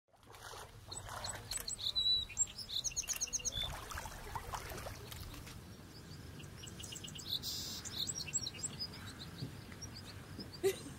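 Several birds chirping and calling in short high notes, with a quick run of about six notes around three seconds in, over a faint low rumble.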